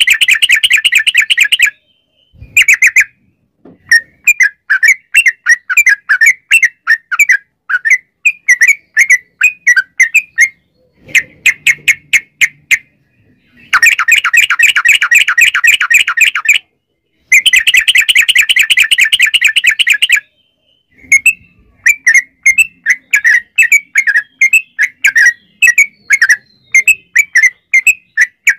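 Caged yellow-vented bulbul (trucukan) singing loudly: fast runs of short repeated chattering notes, in long unbroken stretches twice near the middle and broken into shorter bursts with brief pauses elsewhere.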